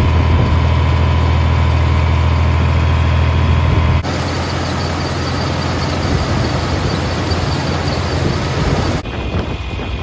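Vintage John Deere tractor engine running steadily with a deep, even drone. The sound shifts abruptly about four seconds in and again near the end.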